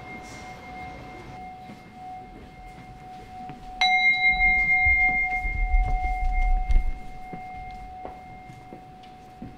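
A handheld Buddhist bowl bell is struck once about four seconds in and gives a clear ringing tone with high overtones that fades slowly. At the start, the ringing of an earlier strike is still dying away. A low rumble sounds under the ringing for a couple of seconds after the strike.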